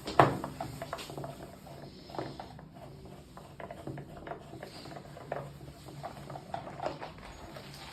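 Hands and tools working on a washing machine's water inlet valve: scattered light clicks and knocks of plastic and metal parts being handled, with a sharper knock just after the start.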